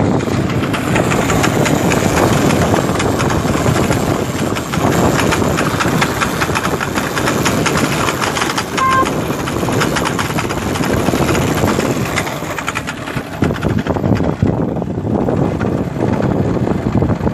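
Honda CB 500 motorcycle riding on a dirt road, engine running with a dense, continuous rattling: the scraping, spring-like clutch noise of the CB500's slipper clutch, which Honda considers normal. A short beep sounds about halfway through.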